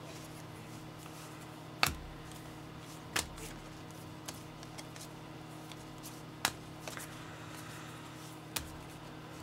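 Trading cards being handled: a few sharp clicks and taps as cards are flipped and set down, four of them louder than the rest, over a faint steady hum.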